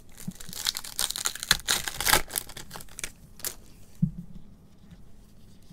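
The foil wrapper of a Topps Allen & Ginter Chrome card pack tears and crinkles for about a second and a half, as the pack is opened and the wrapper handled. A few lighter ticks follow, then a short soft knock about four seconds in.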